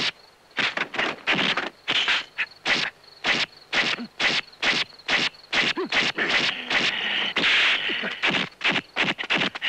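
Kung fu film fight sound effects: a rapid run of dubbed punch, block and whoosh hits, two or three a second, with a longer swishing whoosh about three-quarters of the way through.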